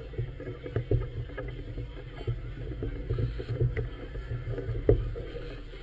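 Choppy river water lapping and slapping against a moored vessel's hull, over an uneven low rumble, with a few sharp knocks; the loudest knock comes about five seconds in.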